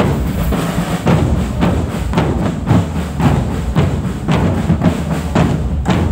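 Marching drum band playing a march: marching bass drums and snare drums keep a steady beat, with heavy strokes about twice a second.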